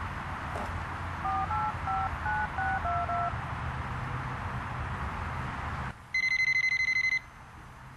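A touch-tone telephone being dialled: about seven or eight short key tones in quick succession over a steady low background hum. A few seconds later a telephone rings once, a high, rapidly warbling electronic ring lasting about a second.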